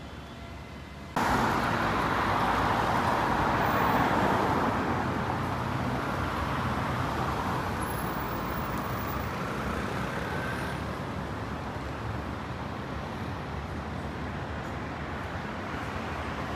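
Road traffic on a busy city square: a steady wash of passing cars and a motor scooter. It starts abruptly about a second in and slowly eases off.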